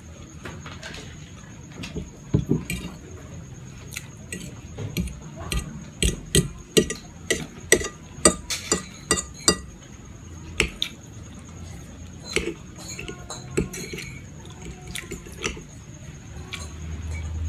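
Metal fork clinking and scraping against a ceramic plate while twirling fettuccine, in an irregular run of sharp clicks, thickest about six to ten seconds in. Chewing sounds of a mouthful of pasta.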